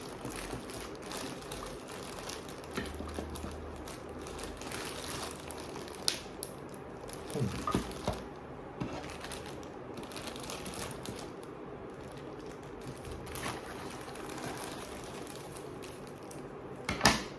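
Plastic packaging rustling and crinkling as it is handled, with scattered light clicks and a sharper knock near the end.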